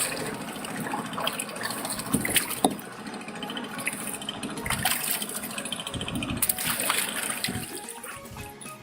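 Water splashing and sloshing, with scattered sharp splashes.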